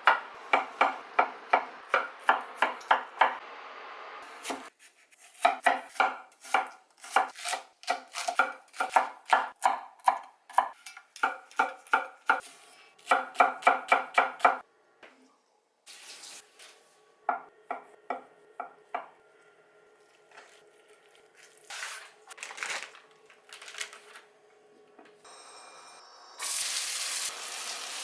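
A knife chopping food on a cutting board in quick, even strokes, about three to four a second, in several runs. Then a few scattered knocks and utensil clatter, and near the end a steady frying sizzle starts in the pan.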